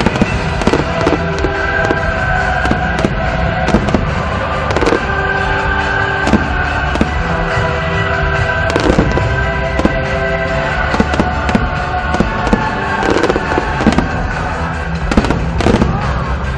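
Aerial fireworks going off in many sharp, irregular bangs over loud music with sustained notes.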